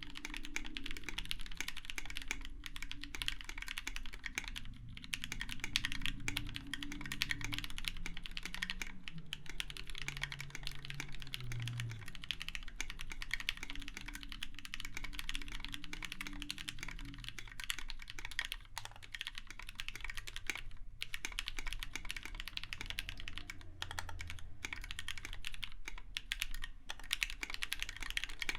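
Continuous fast typing on a KBDFANS 5 Degree mechanical keyboard with Krytox 205g0-lubed Gateron Yellow linear switches in an aluminum plate and blank NKPC keycaps: a dense, unbroken stream of keystroke clacks.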